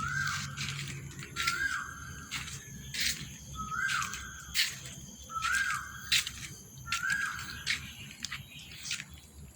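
A bird calling over and over, a short clear note repeated about five times, with sharp clicks in between.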